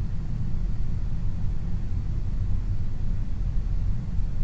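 A steady low rumble with a faint hiss above it, unchanging throughout.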